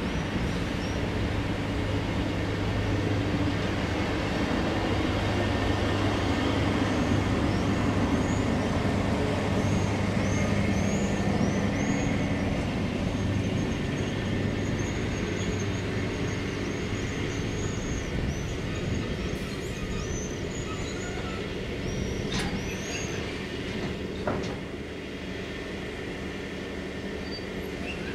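Train wagons (Bcmkh passenger coaches, then empty Rgns flat wagons) rolling past on the rails: a steady rumble of wheels and running gear that swells in the middle and eases off toward the end, with scattered high squeaks and a couple of sharp clicks.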